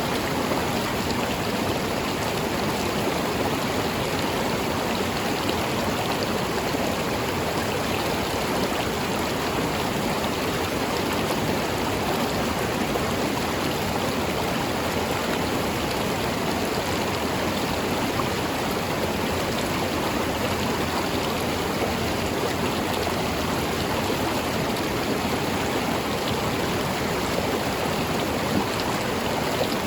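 River water flowing steadily over rocks, a continuous even rushing with no break or change.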